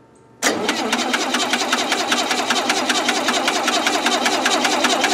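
Gasoline engine of a Lincoln SA-200 welder being cranked over by its starter, a steady, rapid, even churning that starts suddenly about half a second in and never catches. The engine has spark but still won't run.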